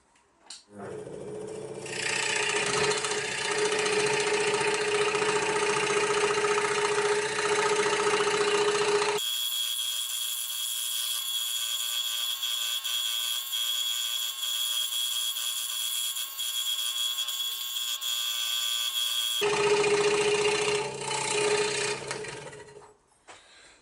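Hegner scroll saw running and cutting thin wood panels, with a steady motor hum and blade chatter. Its sound changes abruptly to a thinner, higher tone for about ten seconds in the middle, then returns, and the saw stops near the end.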